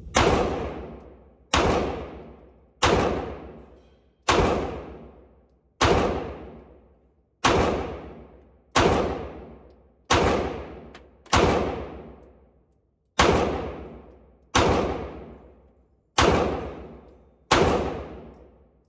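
FMK 9C1 Gen 2 9mm pistol fired at a slow, steady pace, about fourteen shots roughly one and a half seconds apart, each ringing out in a long echo off the indoor range. The pistol cycles every round with no hang-up.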